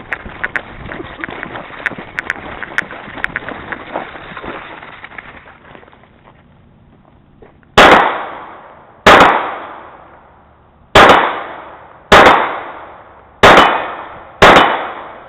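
Rustling and scattered clicks of movement, then six handgun shots about a second apart, each very loud and ringing out briefly.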